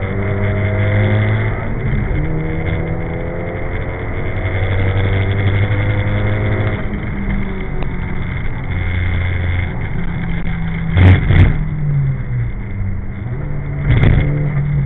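Nissan Silvia S14's engine heard from inside the cabin at track speed, its pitch rising repeatedly under acceleration and falling back through the corners. Two loud knocks close together about eleven seconds in and another near the end.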